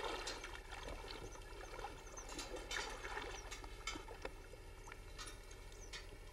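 Scattered light clicks and taps of a Border Collie's claws and paws on a metal slide ladder as it climbs out of shallow water, over water sloshing and a few faint high chirps.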